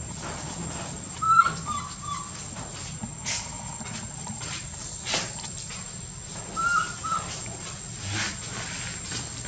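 Baby macaque making short squeaky coo calls: a quick run of four about a second in and two more near the end. A few sharp clicks fall between them.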